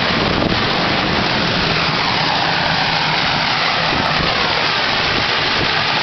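Waterfall: falling water rushing loudly and steadily.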